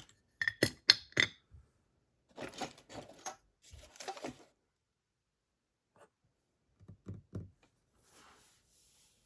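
Small metal lock parts clicking and clattering as a Dorma DC500 lock cylinder is handled and taken apart: a quick run of sharp clicks about half a second in, then scraping and rubbing, and a few dull knocks near the end.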